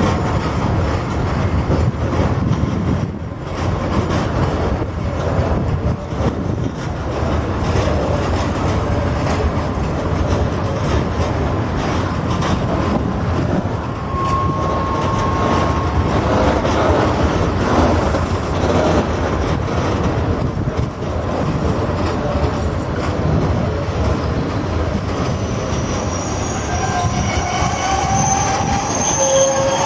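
Freight train of loaded open wagons hauled by a PKP Cargo ET22 electric locomotive, rumbling and clattering steadily over the rails. The wheels squeal briefly about halfway through.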